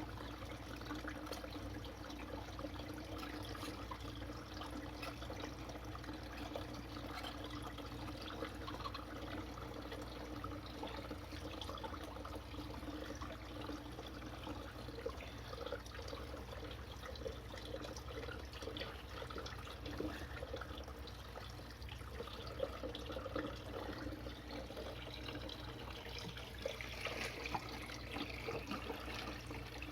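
Water trickling steadily in an aquaponics system, over a low steady hum, with faint scattered clicks and scrapes of a plastic pipe fitting being handled.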